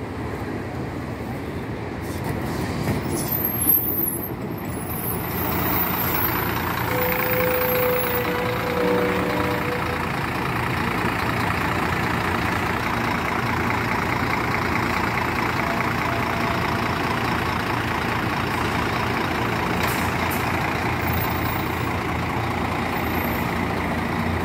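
Diesel engine of an intercity coach running as the bus drives in close by and pulls into the bay, getting louder about five seconds in and then holding steady.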